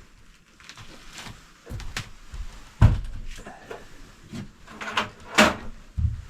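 Irregular knocks, clunks and rattles from handling hardware while fitting the air intake and exhaust hoses and a hose clamp onto a diesel heater. The loudest knock comes about three seconds in, and another sharp clunk comes near the end.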